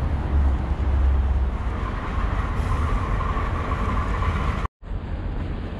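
City street traffic noise with wind rumbling on the microphone; it cuts out briefly near the end.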